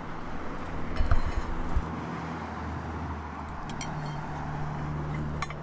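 Steady low hum of an idling engine, its note stepping up slightly about three and a half seconds in, with a few light knocks about a second in.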